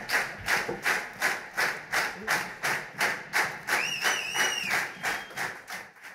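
Audience clapping together in a steady rhythm, nearly three claps a second. About four seconds in, someone in the crowd gives a wavering whistle lasting about a second. The clapping fades out at the end.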